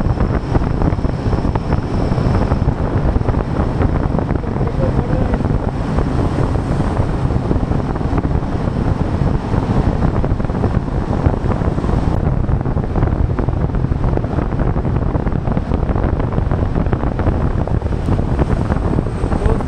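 Steady wind rush buffeting the microphone over a Royal Enfield motorcycle's engine and exhaust while riding at road speed.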